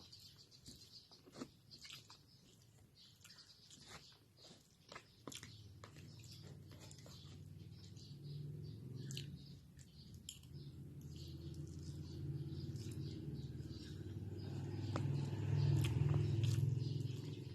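Close-up eating sounds: a person chewing a mouthful of pancit canton noodles, with scattered small clicks and smacks. Under it, a low hum swells steadily louder through the second half.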